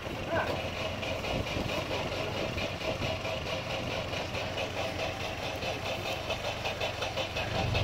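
Off-road vehicle's engine idling steadily, with an even, rapid pulse.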